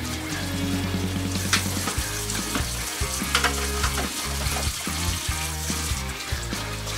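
Background music with a steady beat and bass, with a hissing noise over it.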